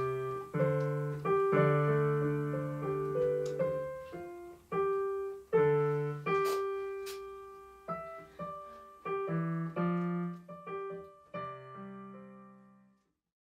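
Piano being played: a slow run of chords, each struck and left to ring out. It ends on a low chord that fades away shortly before the end.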